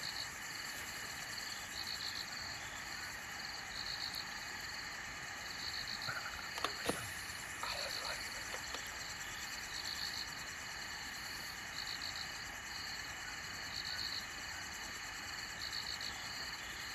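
Night forest chorus: a steady high insect trill, with a pulsed chirping call repeating every second or two. A few faint clicks come about halfway through.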